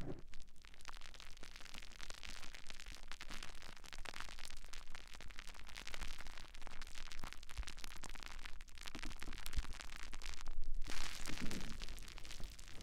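Foam sponge rubbed and squeezed right against a microphone, a dense crackling rustle of fine clicks that grows louder near the end.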